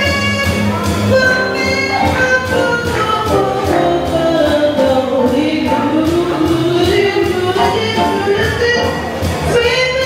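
Live jazz vocals: several singers taking turns and joining in over a jazz quintet backing, with drum kit cymbals keeping time.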